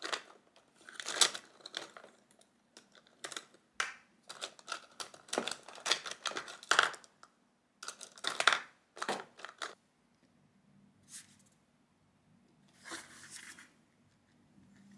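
Plastic pens clattering and rattling against each other as a hand rummages through a clear acrylic pen holder: many short, irregular clicks and rustles for about ten seconds. Then it goes quiet, with a faint scratch of a pen on paper near the end.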